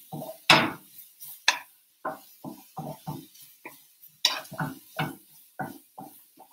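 Wooden spatula stirring diced sweet potatoes around a nonstick skillet, a short scraping stroke about two to three times a second.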